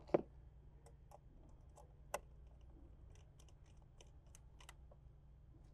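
Small clicks and ticks of a screwdriver working the screw terminals of a potentiometer board as wires are fastened: a sharp click just after the start, another about two seconds in, then a run of faint ticks, over a faint steady hum.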